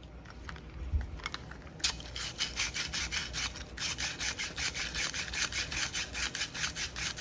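The end of a cut copper pipe being sanded by hand with abrasive cloth in quick back-and-forth strokes, about five a second, to clean it for soldering. The rubbing starts about two seconds in, after a few light clicks.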